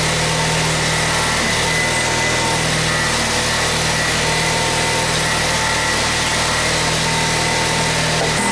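Honda 4514 lawn tractor's liquid-cooled twin-cylinder engine idling steadily, warming up after a cold start.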